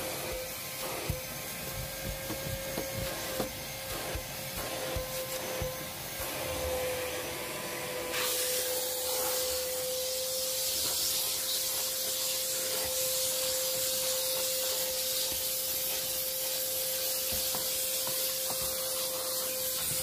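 Prestige Typhoon 05 wet-and-dry vacuum cleaner with a 1200-watt motor running with a steady whine while its nozzle rubs and knocks across a car's dusty floor carpet. About eight seconds in, the airy hiss of the suction grows suddenly louder and stays so.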